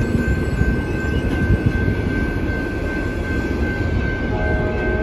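Amtrak Siemens Charger diesel-electric locomotive and its passenger cars passing close by: a loud, steady rumble of the diesel engine and wheels on the rails, with a thin steady high whine.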